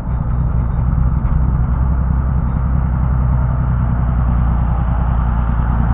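A large engine idling, a low, steady drone that holds even throughout.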